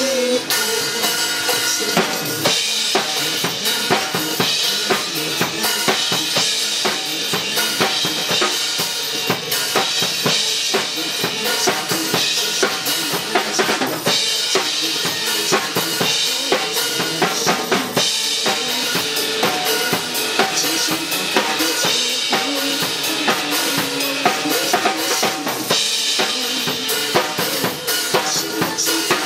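Drum kit played live along to a recorded pop backing track, with steady, rapid strikes on kick and snare.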